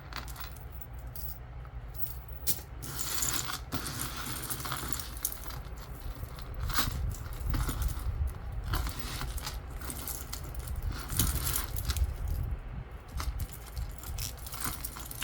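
Metal jewelry chains and pieces clinking and jingling as they are handled and sorted by hand, a run of small irregular clicks and rattles.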